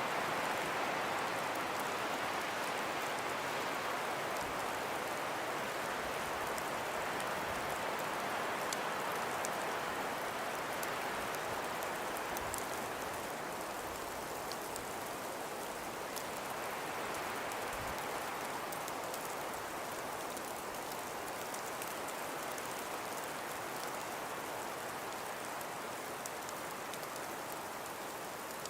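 Steady hiss of wind-driven snow, a blizzard ambience with slow swells that ease a little over time, and faint tiny ticks of flakes or ice grains scattered through it.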